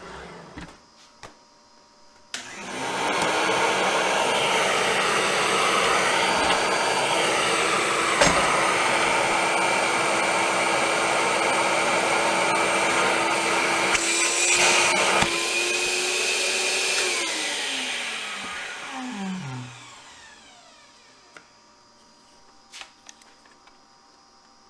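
An electric motor starts abruptly about two seconds in and runs at a steady pitch for about fifteen seconds, with a click partway through and a brief louder stretch. It then winds down with falling pitch over a few seconds.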